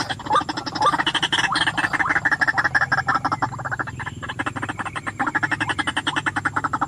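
White-breasted waterhen (ruak-ruak) calling: a long unbroken run of harsh, rapidly repeated croaking notes, many a second, with a few rising notes near the start. This is the call that trappers use to lure the species.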